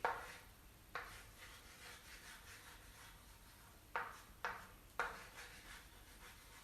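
Five faint, short scraping or rubbing strokes, each starting sharply and fading quickly: one at the start, one about a second in, and three close together near the two-thirds mark.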